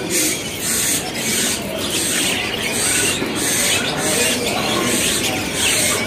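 Many caged birds chirping and squeaking together in a bird market, with a high, thin call pulsing about one and a half times a second.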